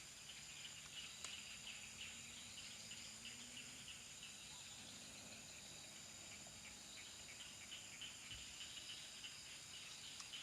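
Faint steady chorus of forest insects: several thin, high, unbroken trills sounding together over a flickering patter of rapid chirps.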